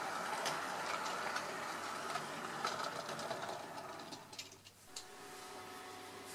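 OO gauge model freight train, a Hornby Q6 locomotive hauling Oxford Rail Pilchard wagons, running along the track: a steady mechanical hum with light irregular clicks from the wheels passing rail joints, fading as it moves away. About five seconds in it gives way to a quieter steady hum.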